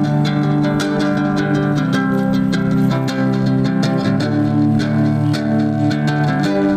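Instrumental break played on a small ukulele-sized nylon-string guitar, strummed steadily, over a sustained low bass line that moves to a new chord every second or two.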